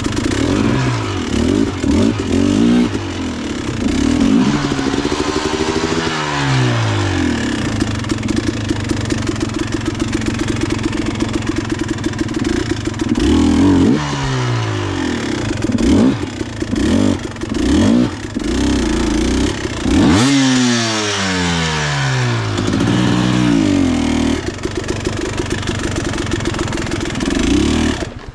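Dirt bike engine revving up and down over and over as it is ridden over rough creek-bed terrain. Near the end the engine sound cuts off suddenly.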